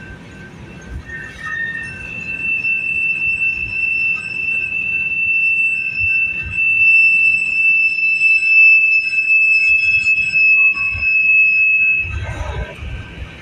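A steady, high-pitched squeal of steel train wheels on the rails, growing louder over several seconds and then cutting off suddenly near the end, with a brief low rumble after it.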